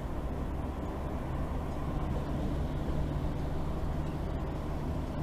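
Steady road and wind noise in a car's cabin while driving at speed, a low, even drone with a faint engine hum underneath.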